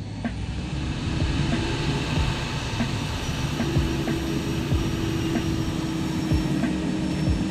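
Table saw running steadily, its blade cutting through a sheet of Coosa composite board as it is pushed across the table.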